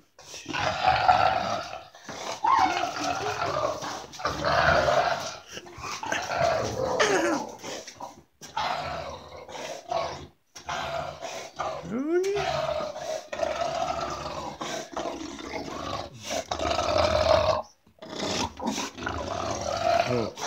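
English bulldog growling and grunting in repeated bouts with short breaks as it tugs and mouths a plush toy duck in play. There is a short rising cry about twelve seconds in.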